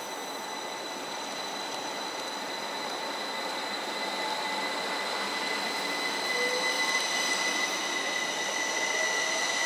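Northern Rail Class 333 electric multiple unit moving past the platform: steady running noise with a high, steady whine, slowly growing louder.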